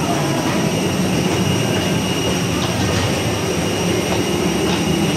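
Steady rumble and thin high whine of a parked airliner's machinery heard at the boarding door, with no breaks.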